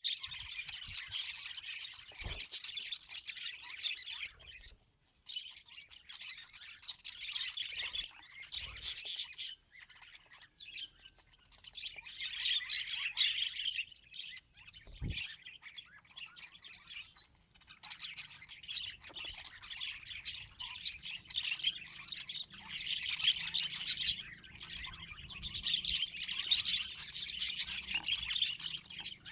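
Budgies chattering and warbling in bouts of rapid chirps and squawks, with short pauses between bouts and a few soft low thumps.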